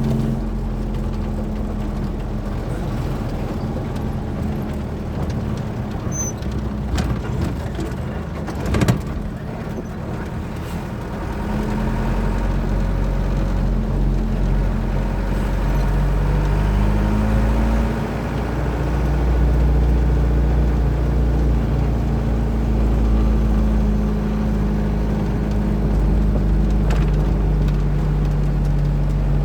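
Truck engine running while driving, with road noise. There is one sharp knock about nine seconds in, and the engine grows louder from about twelve seconds in.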